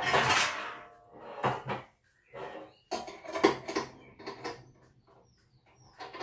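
Clanks, knocks and scrapes of the Aicook air fryer oven's metal rotisserie spit and forks being handled and worked out of the oven, with a loud scrape right at the start and a string of separate knocks after it.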